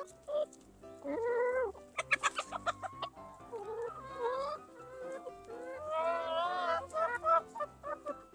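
Backyard chickens calling excitedly while feeding: a string of rising and falling squawks and clucks, with a quick run of sharp clucks about two seconds in and a long wavering call near the end.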